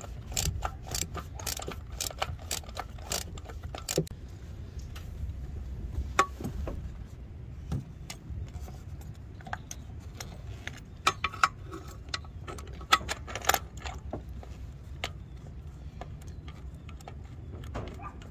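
Ratchet clicking in quick strokes on a socket extension as a spark plug is backed out, then scattered metallic clinks of the socket and extension being handled, over a low wind rumble on the microphone.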